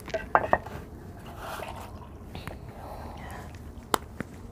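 Light clinks and taps of steel plates, bowls and spoons during a meal, with a sharp click about four seconds in.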